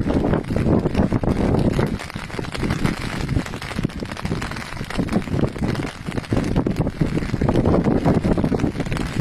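Strong gusty wind buffeting the microphone: a loud low rumble that surges and eases, heaviest around the start and again near the end.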